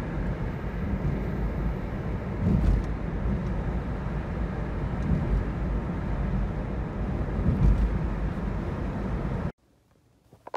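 Road noise inside a moving car's cabin: a steady low rumble of tyres and engine, swelling louder about two and a half seconds in and again about three-quarters of the way through, and cutting off abruptly about a second before the end.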